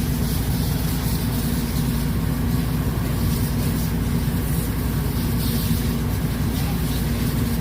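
A vehicle engine running steadily: a constant low rumble with a steady hum.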